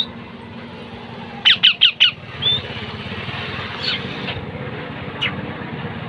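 Parakeet squawking: four shrill calls in quick succession, each sliding down in pitch, about a second and a half in, then a shorter call and a couple of fainter ones later. A steady low engine hum runs underneath.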